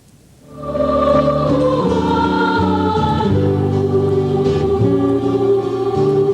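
Background music with a choir singing long held notes over a low accompaniment, fading in about half a second in.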